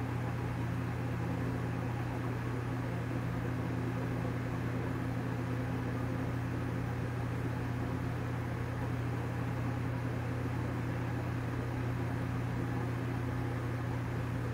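Steady low hum with a faint even hiss: room tone from a running appliance or the recording setup.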